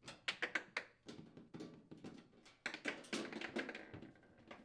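A 1/4-inch nut driver unthreading a screw from a refrigerator freezer's rear access panel: a run of light clicks and scrapes, busiest about three seconds in.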